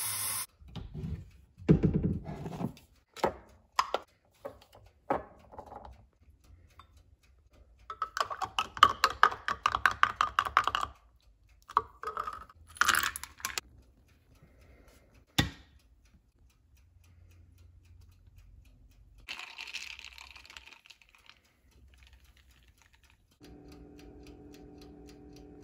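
Kitchen prep sounds: a run of clinks, clicks and knocks from glassware and utensils, with bursts of quick ticking. There is a short hiss about twenty seconds in, and near the end a steady low hum as an air fryer runs.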